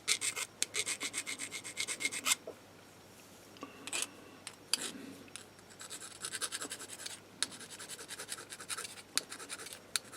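Small hand file rasping in quick short strokes along the moulded lower body of a Hornby OO-gauge locomotive chassis, smoothing its edge. A fast run of strokes at the start, a pause with a few single strokes, then lighter strokes from about halfway through.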